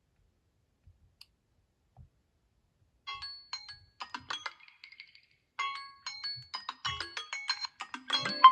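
Smartphone ringtone: a bright chiming melody of short notes, coming in about three seconds in after a few faint clicks.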